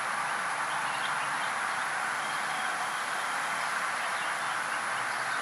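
Steady hiss-like background noise with faint, brief chirps scattered through it.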